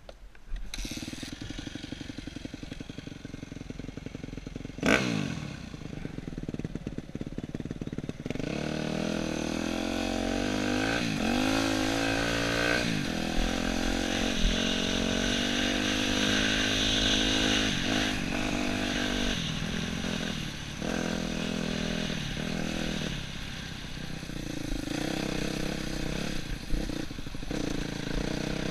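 Yamaha YZ250F's single-cylinder four-stroke engine running at low speed for the first several seconds, with a sudden loud knock about five seconds in. From about eight seconds it pulls harder, its pitch rising and dipping again and again with the throttle.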